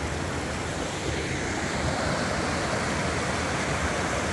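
Burbage Brook, a rocky stream, rushing and splashing over boulders and small cascades: a steady rush of water that grows a little louder about a second and a half in.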